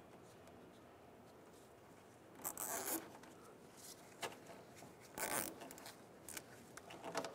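Zip ties being pulled tight, ratcheting in short rasps: about two and a half seconds in, again about five seconds in, and a shorter one near the end.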